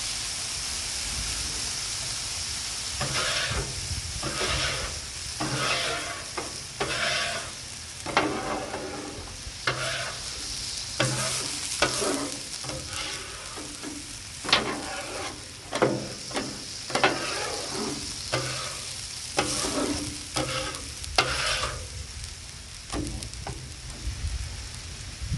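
Raw eggs being beaten in a bowl, in separate stirring strokes about once a second that start a few seconds in. Under them runs the steady sizzle of food frying on a hot flat-top griddle.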